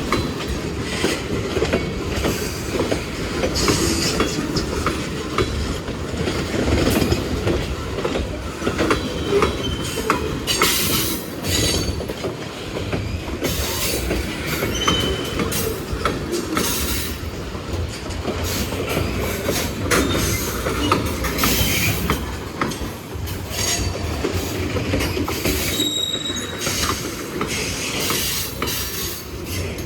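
Freight cars of a Norfolk Southern train rolling steadily past, the wheels clicking over the rail joints, with a few brief high-pitched wheel squeals.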